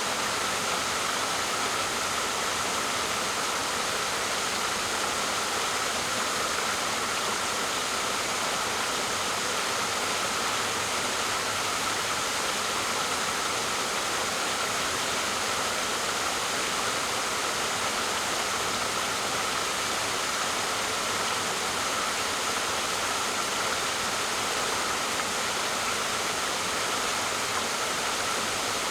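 Waterfall: a steady, even rush of falling water with a hissing top and no pauses or changes.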